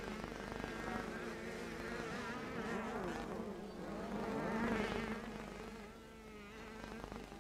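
Several 60cc two-stroke junior motocross bikes racing together, their engines buzzing and revving up and down over each other. The noise swells to its loudest a little before the middle and then falls away.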